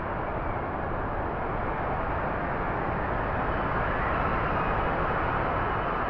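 Strong storm wind blowing hard and steadily, swelling into a gust about four seconds in.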